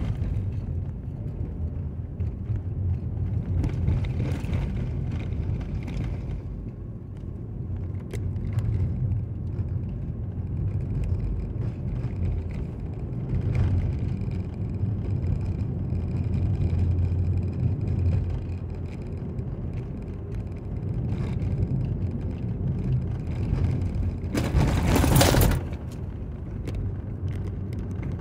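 Steady low rumble of a car driving, heard from inside the cabin: engine and tyre noise on a paved road. Near the end a loud rushing noise lasts a little over a second.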